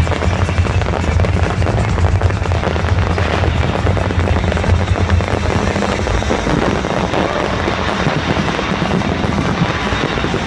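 Fireworks crackling and banging in dense, continuous volleys, mixed with loud music that has a heavy, steady bass.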